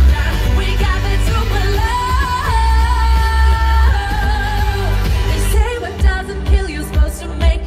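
Live pop song: a woman singing into a microphone over a backing track with heavy bass, with a long held note in the middle. Near the end the music thins to a steady beat about twice a second.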